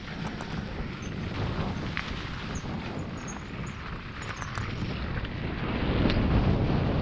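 Mountain bike riding over a trail thick with dry leaves: tyres crunching through the leaves and small rattles from the bike, over a low wind rumble on the camera microphone. It gets louder from about five seconds in.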